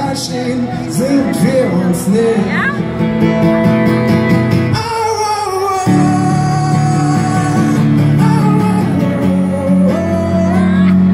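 Live band playing: a man singing long held notes over a strummed acoustic guitar with the band behind him. The low end of the band drops out for a moment about five seconds in and comes back fuller about six seconds in.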